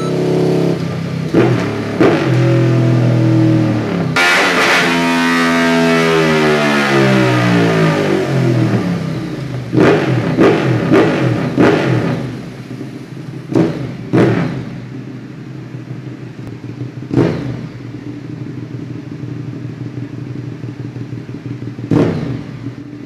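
Ducati 848 Evo's L-twin engine through a Termignoni exhaust, with a deep, raspy sound: held at high revs and then dropping away over several seconds, followed by a string of short, sharp throttle blips.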